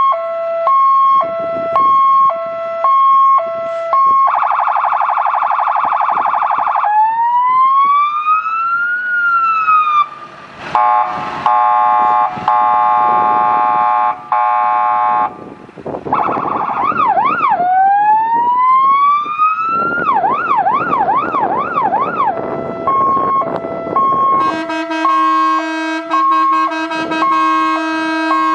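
Renault Midlum fire truck's siren, loud, run through its tones in turn. It starts as a two-note hi-lo, then goes to a fast warble, slow rising-and-falling wails, and rapid yelps. Near the end a steady low tone comes in under the hi-lo.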